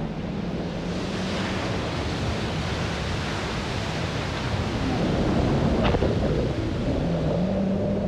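Jet ski engine running under a wash of wind, spray and breaking surf. The engine's hum fades after about two seconds and returns near the end, and the surf noise grows louder past the middle.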